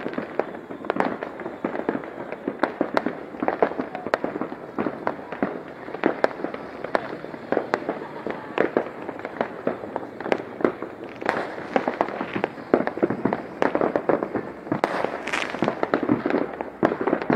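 Fireworks and firecrackers going off in a dense, irregular string of sharp bangs and crackles, several a second, busiest in the last few seconds.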